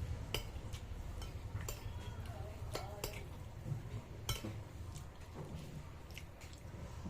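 Eating utensils clicking and clinking against a bowl of noodle soup every second or so, with light eating sounds and a low steady hum underneath.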